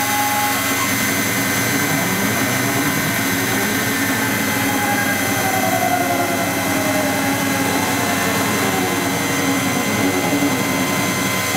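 ProLight benchtop CNC milling machine cutting machinable wax: the spindle motor runs steadily while the end mill chips through the wax. Whining motor tones glide down in pitch partway through as the table moves.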